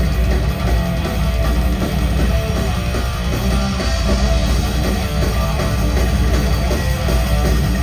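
Rock band playing loud, guitar-heavy music, with a steady, heavy low end.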